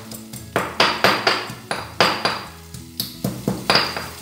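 Pestle pounding in a mortar: about ten sharp, uneven strikes, two to three a second, each with a short ringing tail.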